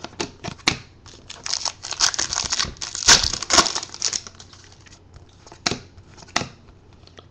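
A foil trading-card pack being torn open and crinkled by hand, with a dense burst of crackling about two to four seconds in. A few light clicks follow as the cards are handled.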